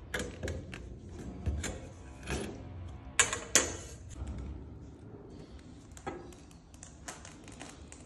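Clicks, knocks and scrapes of a red lever tube bender and copper pipe being worked and handled, with two sharp metallic clacks a little past three seconds in.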